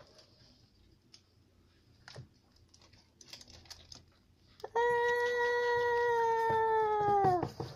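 Light taps and paper rustling, then a single long, steady, high-pitched wail of about two and a half seconds that sags in pitch just before it cuts off.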